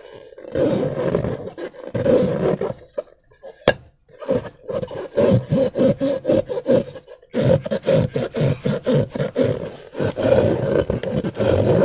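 Slime being squished and worked by hand: long stretches of dense, wet crackling squelches, broken by short pauses, with a single sharp click about four seconds in.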